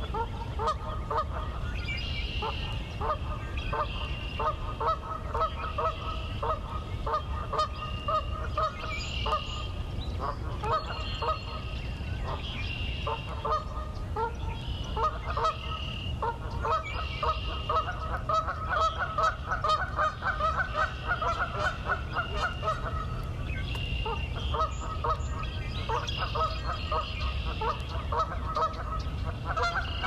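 A flock of geese honking in runs of rapid short calls with brief pauses, while a higher, fainter call repeats about once a second behind them.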